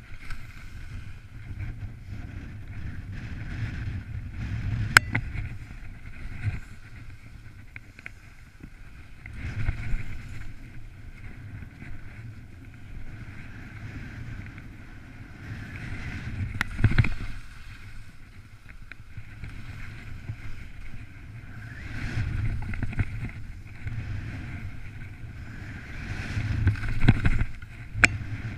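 Skis sliding and scraping over hard snow, swelling about every five seconds, with wind buffeting the camera microphone. A sharp click about five seconds in, and another near the end.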